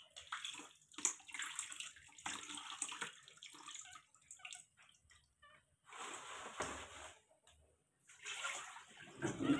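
Water splashing and trickling as a baby monkey is washed by hand, in short irregular splashes with brief pauses between them.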